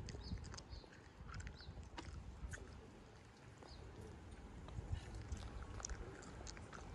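Faint outdoor background: a low, uneven rumble with scattered light clicks and taps.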